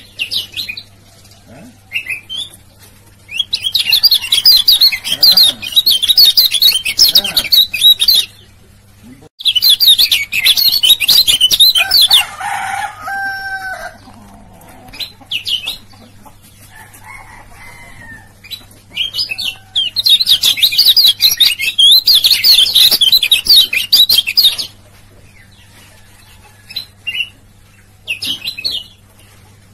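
Male kecial kuning (white-eye) singing: three long bouts of rapid, high twittering 'ciak-ciak' song, each several seconds long, with short single chirps in the gaps.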